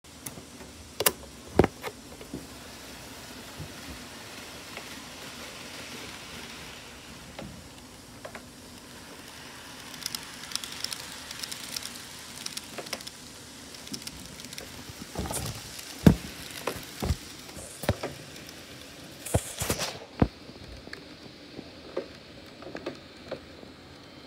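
Model train running on the layout's track: a steady rolling hiss with irregular sharp clicks and knocks. The high part of the hiss drops away about twenty seconds in.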